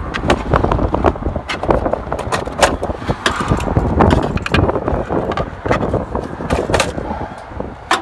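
Wind buffeting the microphone, with a rapid string of clicks and rustles as wiring inside an HVAC unit's control cabinet is handled.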